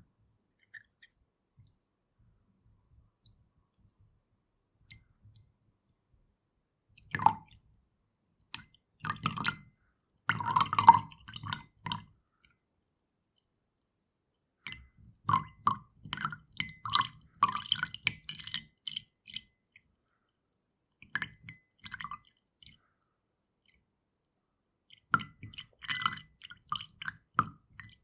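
Milk being poured into a glass in several separate pours with pauses between them: the first comes about seven seconds in, the longest is the one in the middle, and the last runs up to the end.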